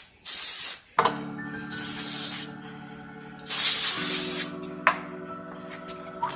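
Three short bursts of spraying hiss, each under a second, over background music that comes in about a second in.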